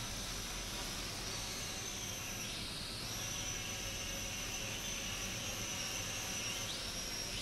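Small quadcopter drone's propellers and motors whining and hissing as it hovers. The high whine dips in pitch and climbs back about two and a half seconds in, then rises again near the end as the motors change speed to manoeuvre.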